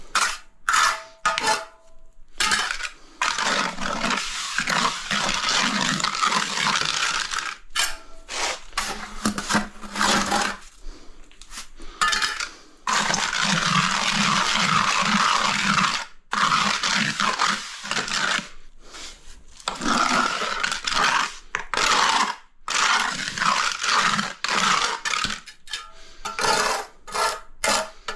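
Repeated scraping strokes of a hand tool across a hard surface, some short and some drawn out for a few seconds, with brief pauses between.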